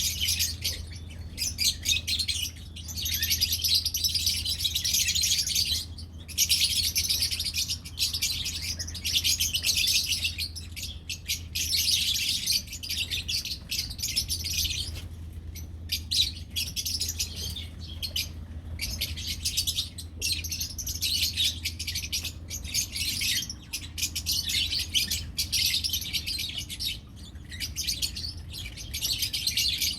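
A group of lovebirds chattering and chirping almost without pause, a dense high twittering with brief gaps, over a steady low hum.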